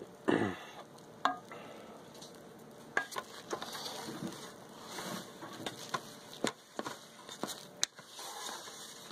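Wooden spoon stirring cooked chicken, corn and rice in a pressure cooker's inner pot, with soft scraping and scattered light knocks of the spoon against the pot. A short falling-pitched sound comes right at the start.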